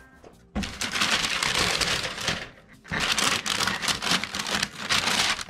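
Thin tissue paper wrapping being handled and folded back by hand, rustling and crinkling in two long stretches with a short pause about halfway.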